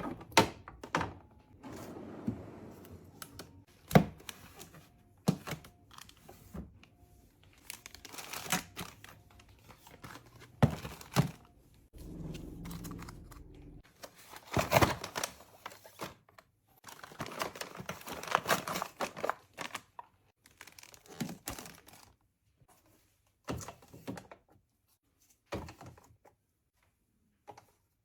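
Groceries being handled and put away: plastic packaging crinkling and tearing, and containers and cans set down with scattered thunks and clicks.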